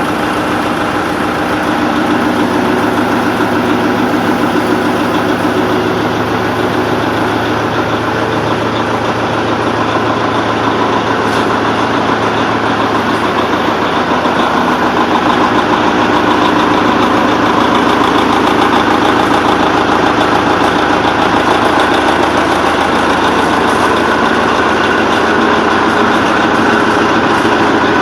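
MTU diesel engine of a DR1B diesel railcar running steadily just after a hard start, getting slightly louder about halfway through. The engine is knocking, and this start ends in the engine stopping.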